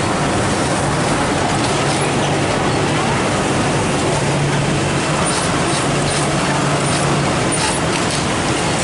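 Steady mechanical din of industrial sewing machines running on a garment factory floor, with a low hum that swells and fades in spurts of about a second.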